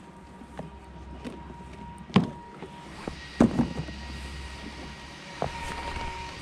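Hands handling a snow-covered Traxxas X-Maxx RC monster truck, its plastic chassis and body knocking and clacking several times. The loudest knock comes about two seconds in and a cluster follows around three and a half seconds, over a steady low hum.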